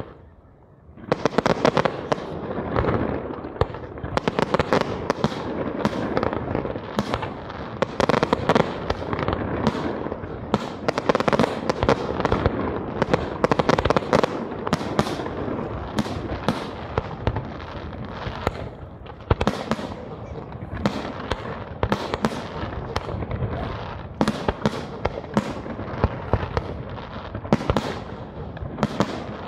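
Fireworks display: aerial shells launching and bursting in rapid succession, a continuous barrage of sharp bangs over dense crackling. It starts about a second in.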